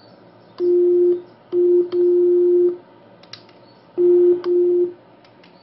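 Steady low-pitched CW beat note from a homebrew 40-metre CW transceiver receiving the Si5351 DDS signal, keyed on and off five times in short dashes. Faint clicks come between the tones.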